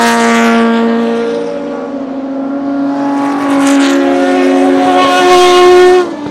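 Lola T92/10 Group C car's Judd GV10 3.5-litre naturally aspirated V10 racing engine running hard on track, its pitch climbing as the car accelerates. The note is loudest near the start and again just before six seconds in, then drops sharply.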